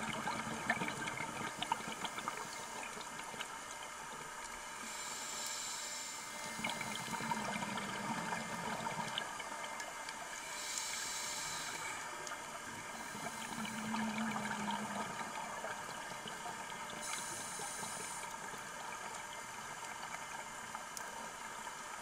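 Underwater sound of a scuba diver breathing through a regulator: three hissing inhalations several seconds apart, two of them followed by a burble of exhaled bubbles. Under it runs a steady crackle of tiny clicks from the reef.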